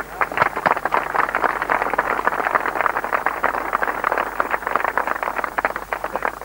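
A crowd of soldiers applauding: dense, rapid clapping that starts suddenly and thins out and dies away near the end, after about six seconds.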